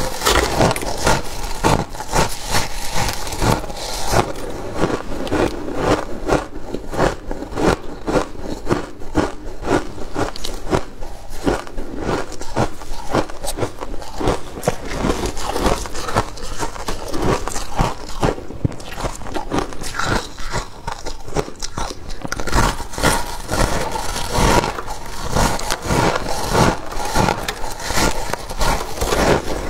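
Freezer frost being bitten and chewed: an unbroken run of crisp crunches, several a second.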